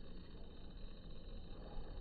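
Faint outdoor background noise: a low, steady rumble and hiss with no distinct event and no bird call.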